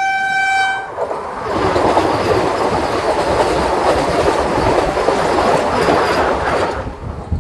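A train horn sounds steadily and cuts off just under a second in. Then a Vande Bharat Express passes at high speed on the adjacent track: a loud rush of wheels on rail and clatter for about five seconds, which stops abruptly near the end.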